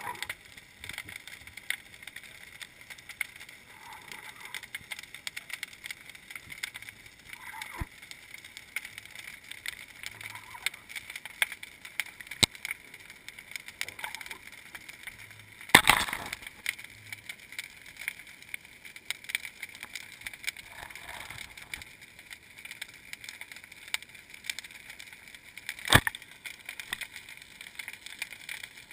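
Muffled underwater noise heard through a GoPro Hero2's sealed waterproof housing as it moves along the seabed: a steady hiss with frequent small clicks, and two sharp knocks, one about sixteen seconds in and another about ten seconds later.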